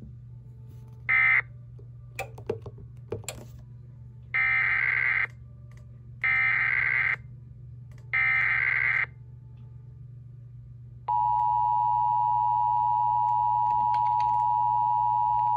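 Emergency Alert System encoder sending an alert: a short beep, then three identical raspy SAME header data bursts about a second long each, followed about 11 seconds in by the steady two-tone EAS attention signal.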